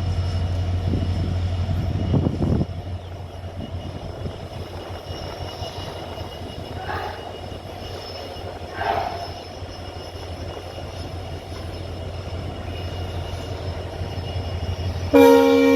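Indian Railways WDG-4D diesel-electric locomotive's engine humming steadily under load as it accelerates a heavy goods train, louder for the first couple of seconds. Near the end a loud, steady sound of several pitches starts suddenly.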